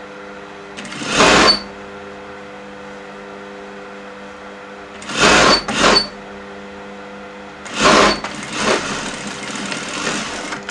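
Sewing machine stitching a seam in short runs: four brief bursts, then a longer, slower run near the end, over a steady hum.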